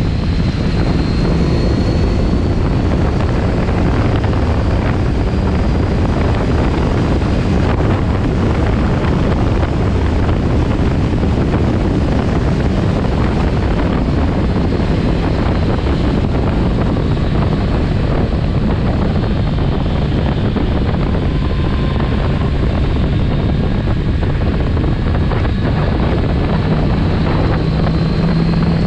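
Kawasaki Z900RS Cafe's inline-four engine running at road speed under heavy wind rush over the microphone, with the engine note growing stronger near the end.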